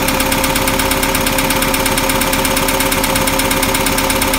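International Harvester 152 slant-four engine idling steadily while its carburettor idle mixture is fine-tuned. It is running at about 22 inches of manifold vacuum, in the gauge's normal-engine range, which is really rather good for this engine.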